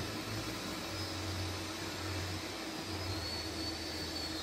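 Steady hum and hiss with a faint low drone and no distinct events.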